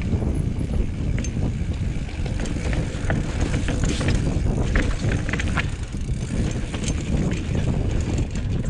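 Banshee Spitfire mountain bike rolling down rocky slickrock singletrack: a steady low rumble of tyres on rock, with scattered sharp clicks and rattles from the bike over the bumps, thickest between about three and six seconds in.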